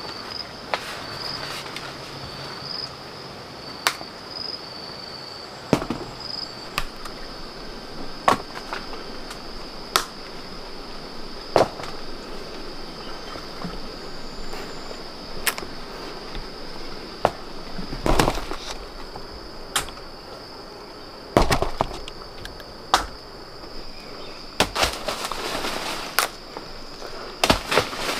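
Steady high-pitched insect chirring, broken into short chirps at first, under sharp knocks every second or two, with a louder, busier run of knocks near the end.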